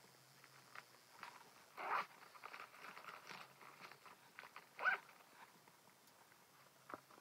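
Faint handling noises of a denim shoulder bag being opened and felt inside: scattered rustles and brushes of fabric and lining, with two louder rustles about two seconds in and near five seconds, and a small click near the end.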